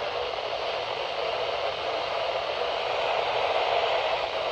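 Radio receiver static: a steady hiss with no voice or alert tones on the channel.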